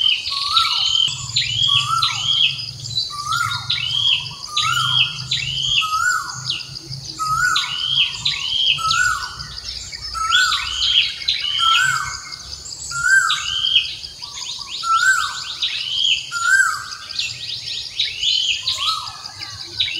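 Birds calling over and over, about once a second, each call a lower swooping note paired with a higher hooked note, over a steady high-pitched insect drone.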